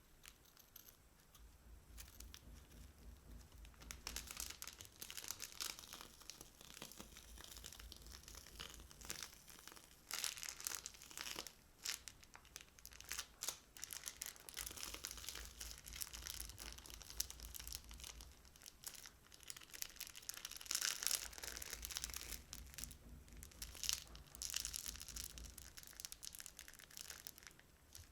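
Crunchy slime being squeezed and pressed by hand, giving dense, irregular crackling and popping that comes in waves.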